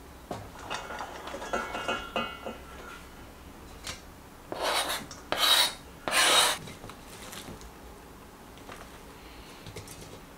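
Shredded cabbage sliding off a plastic cutting board into a stainless steel bowl with light rustling and clicks. Then the board is scraped against the bowl three times in quick succession, each scrape about half a second, clearing off the last shreds.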